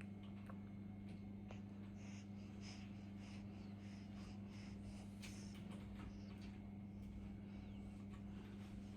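Faint steady low hum with scattered faint clicks.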